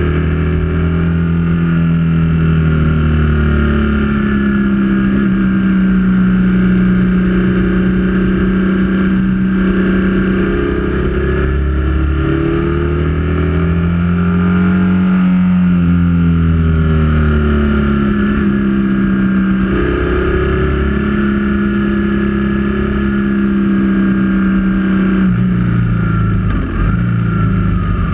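Motorcycle engine running at road speed, its pitch rising and falling in smooth sweeps as the throttle opens and closes through the bends. Near the end the pitch drops and the sound turns uneven.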